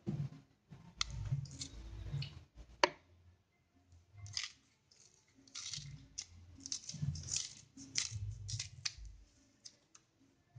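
Banana leaves being folded and handled, rustling and crackling in irregular bursts with scattered sharp clicks and soft bumps on the counter.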